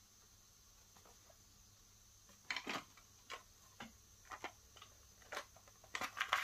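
Faint room noise with a thin steady high tone, then from about two and a half seconds in a string of irregular sharp clicks and knocks, growing busier near the end: hands working the controls of an Akai GX-95 cassette deck to set up a bias test with a Type I tape.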